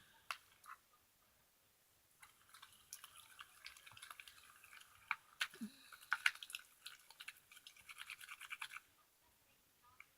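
Glue and laundry detergent being stirred in a bowl as they thicken into slime: a faint run of quick scraping and sticky clicking strokes that starts about two seconds in and stops shortly before the end.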